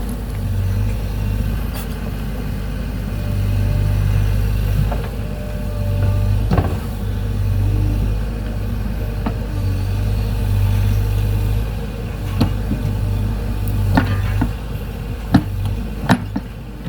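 A motor vehicle's engine running steadily, a low rumble that swells and eases, with scattered short knocks and rattles, several of them near the end.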